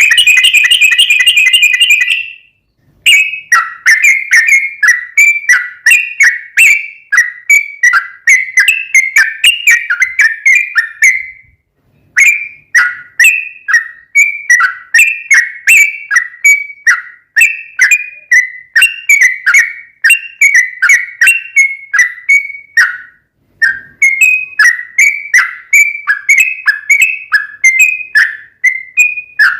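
Yellow-vented bulbul singing a long, fast run of quick downslurring notes, two or three a second. It opens with a rapid trill and pauses briefly about 3, 12 and 23 seconds in.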